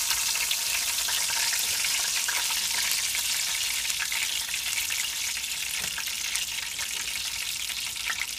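Battered oyster mushroom pieces sizzling steadily in hot oil in a frying pan, with a few faint clicks of metal tongs as pieces are turned and lifted out.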